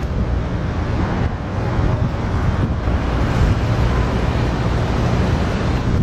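Wind blowing across the camera's microphone, a steady loud noise heaviest in the low end.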